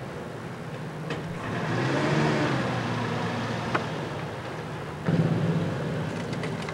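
Motor traffic: a vehicle's engine swells up and passes about two seconds in, then a second engine comes in suddenly and loudly about five seconds in. A single sharp click sounds just before four seconds.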